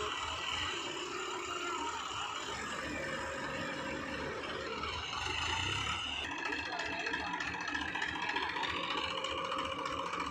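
JCB backhoe loader's diesel engine running as the backhoe arm and bucket work, with a steady low pulsing and a steady high whine. The sound shifts about six seconds in.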